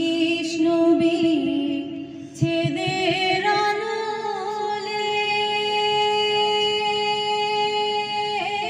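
A woman singing into a handheld microphone, holding long notes. About three seconds in her voice slides upward into one long sustained note.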